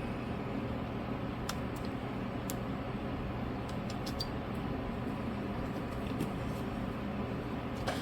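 Steady low room hum with a few faint, short clicks of small tools working on the phone.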